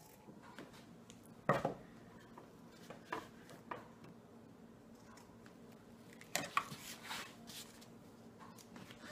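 Scissors snipping through upholstery fabric, then set down on the table with a sharp clack, followed by scattered rustles and light knocks as the fabric is folded over the wooden seat board. A faint steady hum runs underneath.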